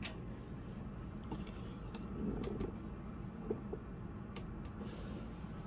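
Faint handling noises: a few light clicks and taps, scattered and spaced out, over a steady low room hum.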